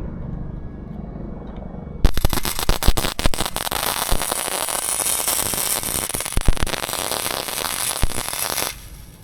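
Welding arc crackling steadily with sharp pops for about seven seconds as a washer is welded onto a rusted, seized bolt. It starts suddenly a couple of seconds in and cuts off near the end.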